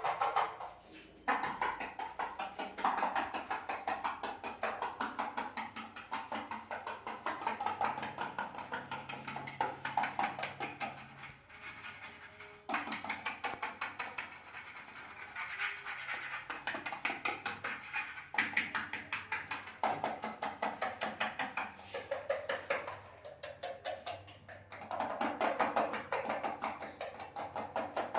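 Rapid, continuous tapping and scratching of fingers on a hard surface, with many taps a second in runs of a few seconds separated by short pauses.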